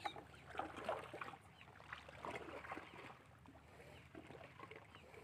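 Faint sea water lapping and sloshing at the shore, with scattered small splashes and clicks.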